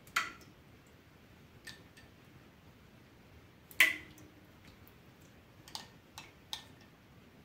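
A spoon knocking against a stainless steel pot as yogurt culture is spooned into warm milk: a sharp knock just after the start and a louder one about four seconds in, each with a brief ring from the pot. Lighter clicks of the spoon in the glass of culture follow near the end.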